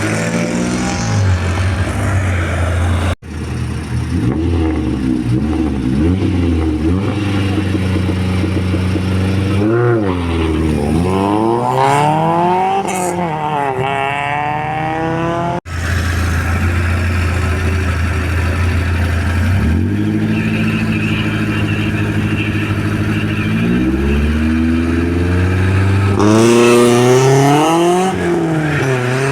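Rally car engines at the start line, held at high revs and then launching away, the pitch climbing and dropping with each gear change. Three separate starts follow one another, each cut off abruptly.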